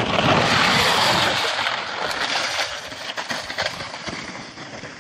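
A sled rushing and scraping down an icy snow slide, with small knocks and rattles as it runs over the ice. The noise starts loud and fades gradually as the run goes on.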